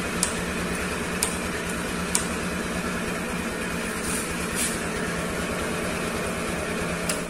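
Honda BiTe AF59's 50cc four-stroke single-cylinder engine idling steadily, with a few sharp ticks.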